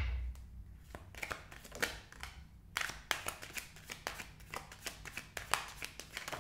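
A deck of tarot cards being shuffled by hand: a run of quick, irregular papery riffles and slides, a few to a second.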